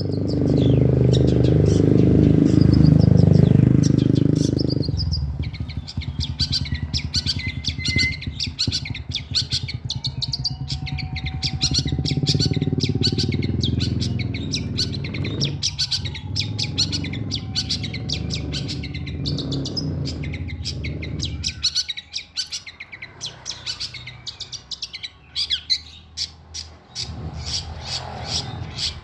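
Long-tailed shrike (cendet) chattering in rapid, harsh chirps. A steady low rumble runs underneath and drops away after about twenty seconds.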